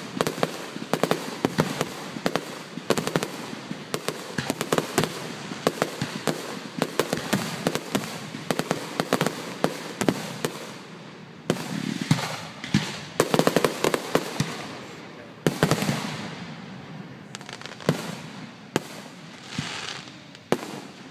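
Fireworks going off: a dense, rapid string of sharp cracks and pops, with heavier clusters of bangs and crackling bursts in the second half.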